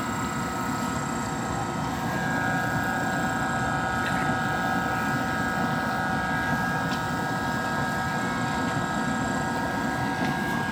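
A steady mechanical drone with several held tones over a low rumble; a higher tone grows stronger about two seconds in.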